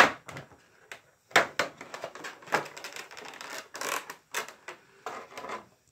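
Clear plastic packaging crinkling and crackling as a toy figure is worked out of its plastic bag and insert, with a few sharp cracks among the rustling.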